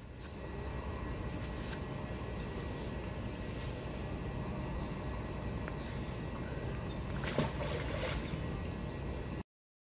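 Steady low outdoor rumble with small birds chirping now and then. Near the end comes a short splash as a magnet-fishing magnet is cast into the canal, and then the sound cuts off.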